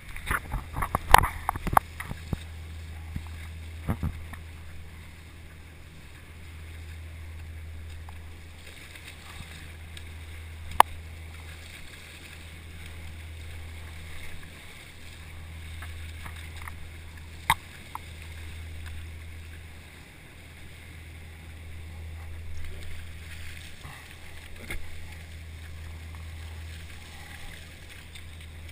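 Wake water rushing and churning around a surfski as it rides a dredge's stern wave, over a steady low hum. A cluster of sharp knocks comes about a second in, and single clicks follow later.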